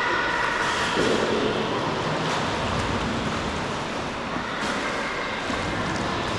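Sea water washing and sloshing steadily around sea kayaks in a sea cave, with a few faint knocks.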